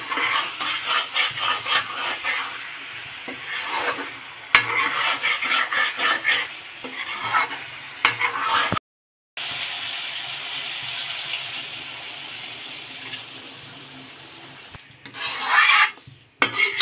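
Steel spatula scraping and stirring chicken masala around a metal kadai in quick strokes, with clinks against the pan and the oil sizzling. After a brief break about nine seconds in comes a steady sizzle, and near the end water poured into the hot pan hisses and splashes as it is stirred in.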